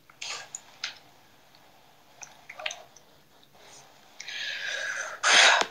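Scattered quiet clicks and mouth noises picked up close to a phone microphone, then about a second of steady hiss and a loud, short burst of noise near the end.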